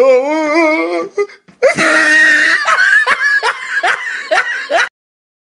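Loud laughter: a long wavering laugh, then a run of rhythmic ha-ha bursts, about three a second, that cuts off suddenly near the end.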